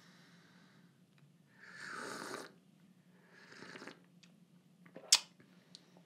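A person slurping espresso from a small glass, with two airy slurps or breaths about two and three and a half seconds in. A short sharp click comes about five seconds in.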